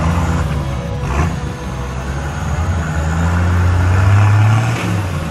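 Bobcat skid-steer loader's engine running and working under load, its revs climbing for about a second and a half before easing back near the end, with music playing in the background.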